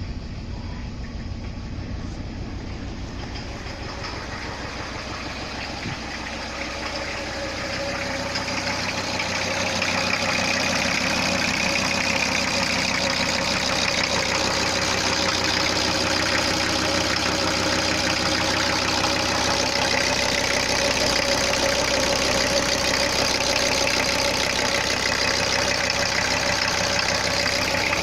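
VW T4's 2.4-litre five-cylinder diesel idling with a steady diesel knock, just after its first start following a cylinder head rebuild. It grows louder about eight seconds in and then holds steady.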